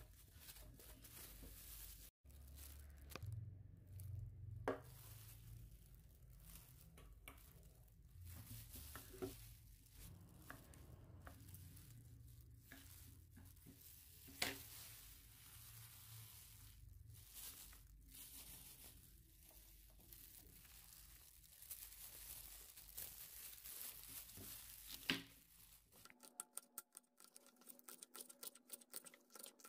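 Faint kitchen prep: a carrot rasped on a red plastic grater, with occasional sharp clicks, then about 26 s in a knife chopping spring onion on a wooden cutting board in quick, even strokes, about four a second.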